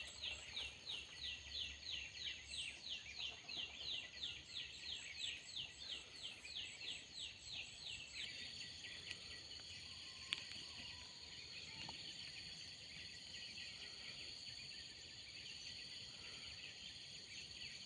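Forest ambience: a rapid, evenly repeated series of high chirps, about three or four a second, stops about eight seconds in. A steady high insect drone then carries on, with a single sharp click shortly after.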